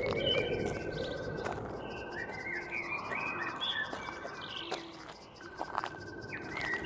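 Birds chirping and twittering in short rising and falling calls over a steady pulsing trill, with a few light clicks.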